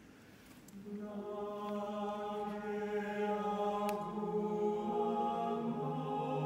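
Small mixed choir singing a cappella in a church. After a short pause the voices come in together about a second in on a long held chord, then move to new chords twice.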